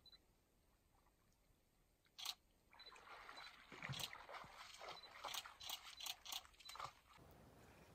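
A moose wading through shallow water, its legs splashing and sloshing in an uneven run of steps from about three seconds in, stopping abruptly near the end. A single sharp knock comes a couple of seconds in.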